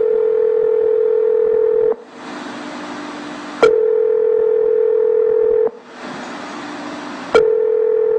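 Telephone ringback tone on the caller's end of the line: a steady mid-pitched tone about two seconds long, sounding three times with pauses of line hiss between, each tone starting with a click. The called phone is ringing and has not yet been answered.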